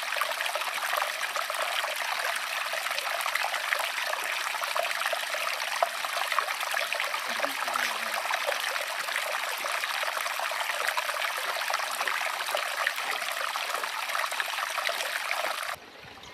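Running water of a stream, a steady trickling and splashing flow that drops away suddenly near the end.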